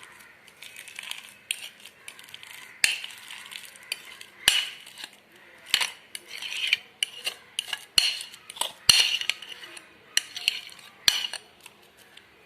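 A spoon scraping mashed potato into a bowl of soaked semolina and knocking against the bowl, with sharp taps every one to two seconds between the scrapes.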